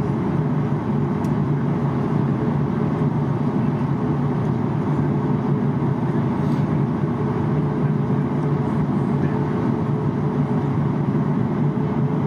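Steady low cabin hum of a Boeing 737 MAX taxiing, heard from a seat beside the wing: its CFM LEAP-1B engines at taxi power.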